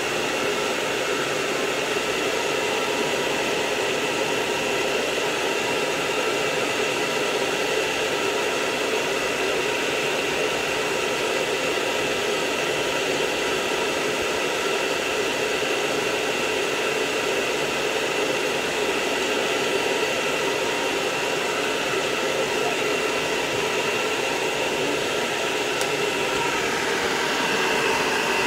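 Hair dryer running steadily, blowing a miniature dachshund's coat dry: a constant rush of air with a whine from its motor. Its tone shifts a little near the end.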